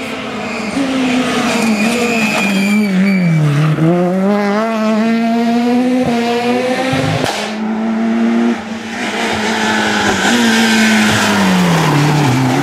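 Rally car engines at high revs passing on a tarmac stage, the note dropping on braking for a corner and climbing again through the gears, twice, with tyre squeal. The sound jumps at cuts between different cars.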